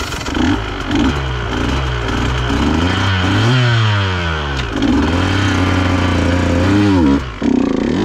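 KTM dirt bike engine revving up and down as the bike crawls and climbs over rough trail, its pitch dropping and climbing again. About seven seconds in the engine sound breaks off sharply and comes back with a clatter as the bike flips back.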